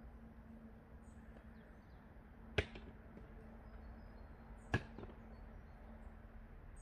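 Firewood logs knocking together as they are dropped into a basket, twice, about two seconds apart, each with a small second knock as the wood settles.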